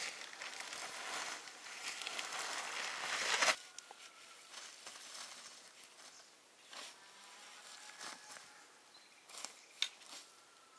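A plastic sheet crinkling loudly as it is shaken out and spread on the ground, stopping abruptly about three and a half seconds in. Then quieter scrapes and rustling from a rake dragging spiky chestnut burrs and dry leaves onto the sheet, with a few sharp clicks near the end.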